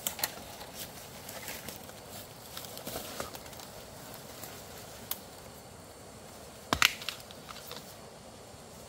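Scattered light clicks and knocks over a faint steady background, with a louder short clatter about seven seconds in.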